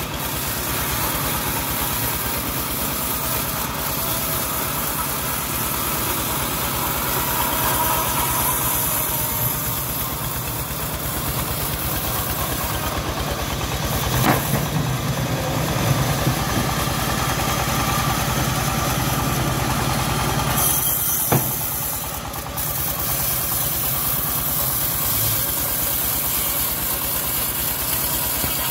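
Engine of a homemade bandsaw sawmill running steadily while the band blade cuts through a hard jowar (johar) log. Two sharp knocks stand out, one about halfway through and another several seconds later.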